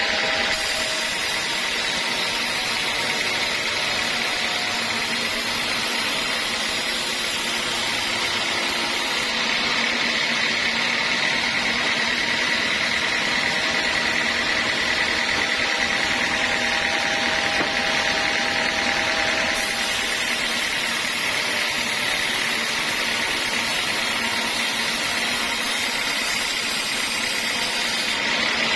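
Sawmill saw machinery running steadily, a constant mechanical whir with a faint high whine.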